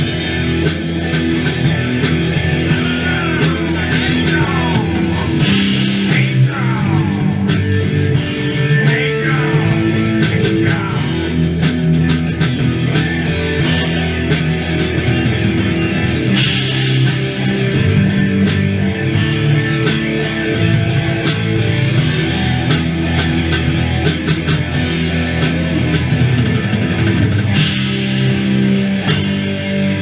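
Live rock band playing electric guitars and a drum kit, with sliding, bending guitar notes during the first ten seconds.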